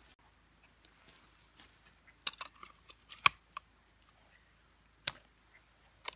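A few sharp clicks and taps over a quiet background: a cluster a little past two seconds in, the loudest about three seconds in, and another about five seconds in.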